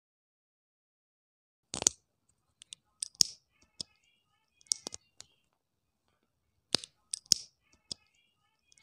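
Plastic Lego-style minifigure and motorcycle parts clicking as they are handled and pressed together: short, sharp clicks in small clusters, about a dozen in all.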